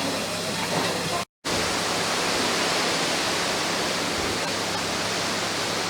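Steady rushing hiss of steam from a steam locomotive, cut off completely for a fraction of a second about a second in, then carrying on.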